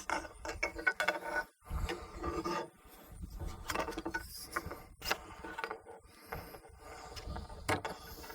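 Paramotor cage tubing sections being pushed apart and pulled off by hand, with irregular rubbing and scraping and a few sharp clicks, one about five seconds in and another near the end.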